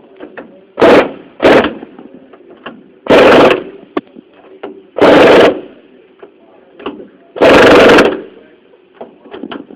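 A 1/2-inch impact wrench hammering in five short bursts, the later ones a little longer, as clamp bolts are snugged up a little at a time.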